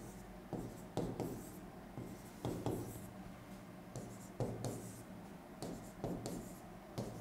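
Pen or stylus writing on an interactive board's screen: a string of short, faint scratching strokes and taps, about two a second, as small circled letters are drawn.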